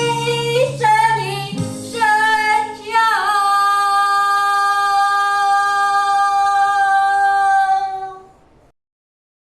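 A woman singing the closing phrase of a Chinese pop song. A few short notes lead into one long high note held steady for about five seconds, which dies away near the end.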